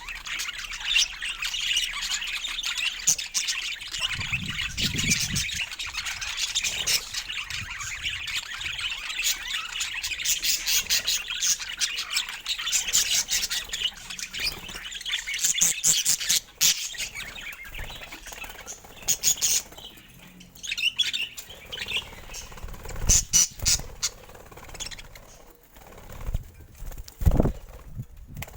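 Budgerigars chattering with busy chirps and clicks, thinning out to scattered calls in the last third, with a few low thumps.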